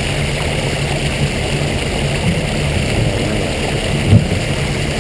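Steady low mechanical hum from a fish-stocking truck, over the hiss of water churning in its oxygen-aerated tank. A brief low bump comes a little after four seconds in.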